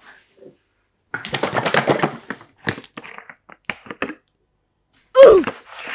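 A quick run of clicks and taps from something hard being handled, then a few scattered clicks. About five seconds in comes a short, loud sound that falls in pitch.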